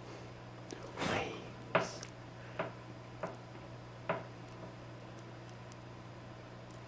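Faint steady electrical hum with a handful of short, light clicks and knocks of handling in the first four seconds.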